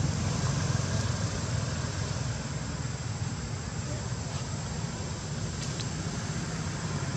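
Steady outdoor background rumble, strongest in the low range, with a faint high steady whine on top and a couple of faint ticks.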